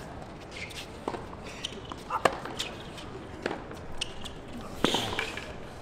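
Tennis rally on a hard court: sharp pops of racquets striking the ball about every second and a quarter, with fainter ball bounces between.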